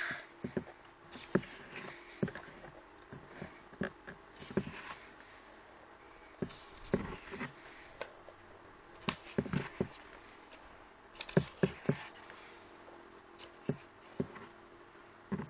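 Glossy photobook pages being turned and handled: scattered paper rustles and soft taps in small clusters, over a faint steady hum.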